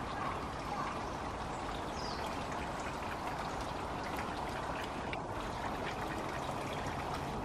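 Water running and trickling steadily, a continuous even wash of sound.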